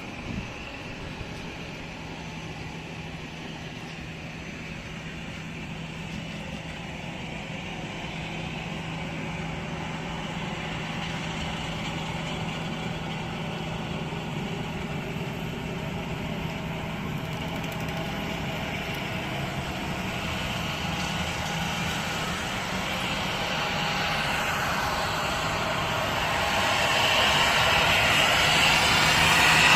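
Airliner engines running steadily, then growing louder toward the end as they power up for takeoff.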